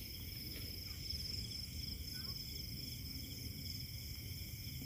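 Crickets and other night insects trilling steadily at several pitches at once, a continuous chorus over a low steady rumble.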